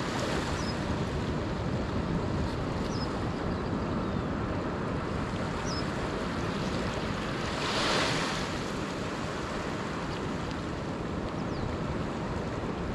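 Ocean surf washing onto a beach, with wind buffeting the microphone; a wave breaks a little louder about eight seconds in.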